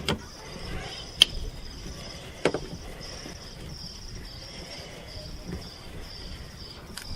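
Insects chirping in a steady, even pulse, with a few sharp clicks, the loudest about a second in, from hands working on the parts.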